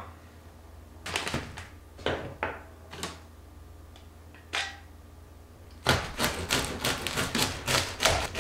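Knife sawing through a crusty baguette on a cutting board. A few separate crunchy strokes come first, then from about six seconds in a quick, steady run of crackling strokes.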